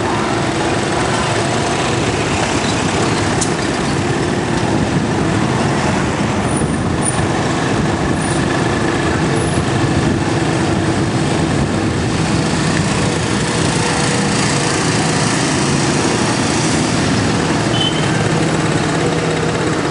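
Steady engine and road noise of a moving vehicle, heard from the vehicle itself, with a faint steady hum in it.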